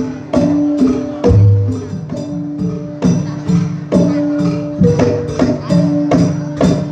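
Classical Javanese jathilan music played on gamelan: struck metal keyed instruments and gongs ringing on held pitches over a steady pattern of drum and percussion strokes, with a deep low stroke about a second in.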